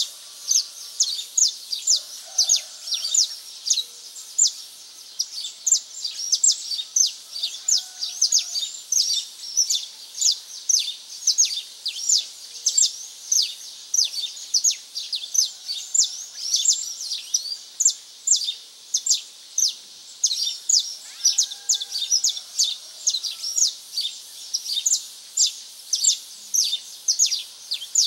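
Dawn chorus of small birds: a dense, unbroken run of short, high chirps, several a second, with fainter, lower calls now and then.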